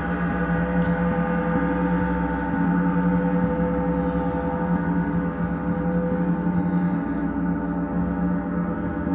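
Large hanging gong being played with mallets: a steady, sustained wash of many overlapping ringing tones, with no single stroke standing out.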